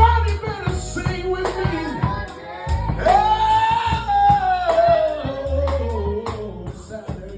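Live band music with a singer: a long held sung note about three seconds in that slowly falls in pitch, over steady percussion strikes and a bass line.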